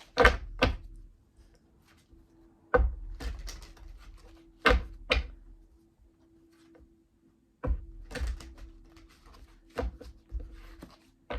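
Oracle cards being handled on a table: about five pairs of sharp knocks and clatter, spaced a couple of seconds apart, as the deck is worked and cards are drawn.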